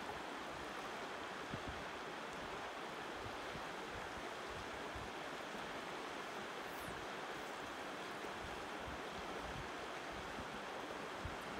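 Steady rush of river current flowing over boulders.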